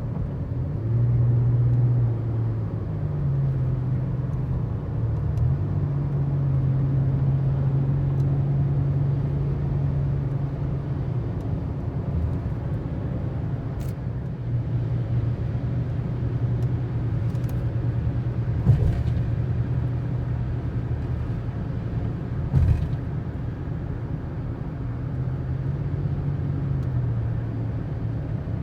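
Truck engine and road noise while driving: a steady low drone whose pitch steps up and down as the engine speed changes, with two brief knocks a few seconds apart past the middle.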